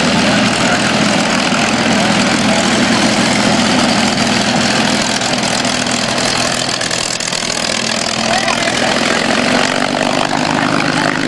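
Propeller-driven piston aircraft engine running steadily at low power, as for taxiing, with an unbroken hum.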